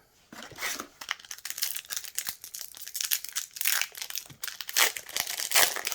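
Shiny plastic booster pack wrapper crinkling and tearing as the pack is pulled open by hand, with irregular crackles throughout.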